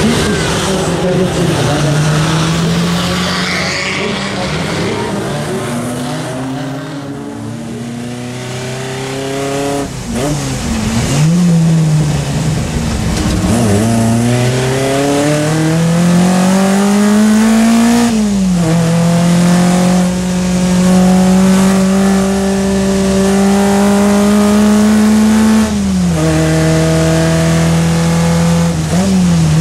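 Triumph Spitfire Mk3's four-cylinder engine heard from inside the cockpit, pulling hard and rising in pitch, with a sudden drop at each upshift, four times. A long steady stretch comes before the last shift.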